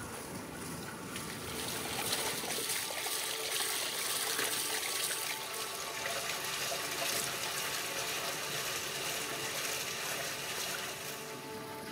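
Water running steadily from an outdoor spout, with splashing as raw beef tripe is rinsed by hand in a steel bowl.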